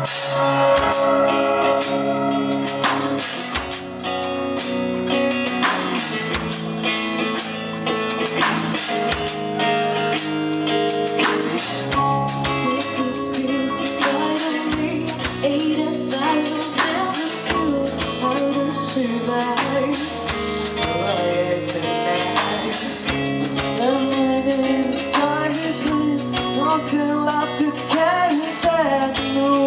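Live band playing the instrumental opening of a rock song: guitar and drum kit.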